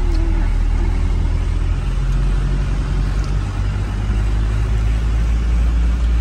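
Road and engine noise inside a moving car's cabin: a steady deep rumble, joined about two seconds in by a steady engine hum.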